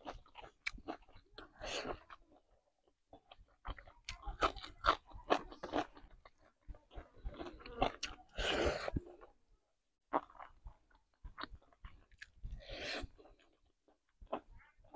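Close-miked chewing and wet mouth clicks and smacks of a person eating spicy masala chicken and rice by hand, with short pauses between mouthfuls.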